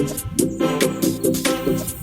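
Background music with a steady beat and repeating melodic notes.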